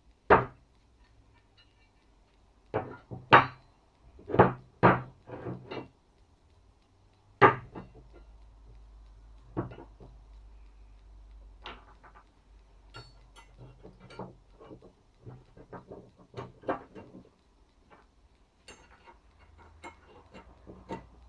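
Blacksmith-forged iron bars of a fireplace crane clunking and clanking as they are set down and moved about on a wooden bench: a run of sharp metal-on-wood knocks in the first several seconds, then lighter clicks and taps as the pieces are fitted together.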